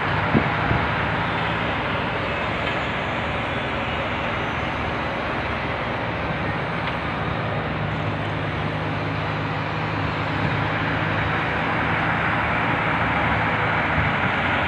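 Engine of heavy construction machinery running steadily, a low hum under a broad rushing noise, a little stronger in the second half.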